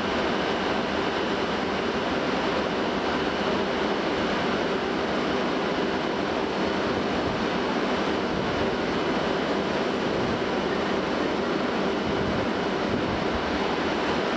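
Diesel railcars of the Sakura Express running slowly as they depart empty for the depot: a steady engine hum under an even hiss, with no change in level.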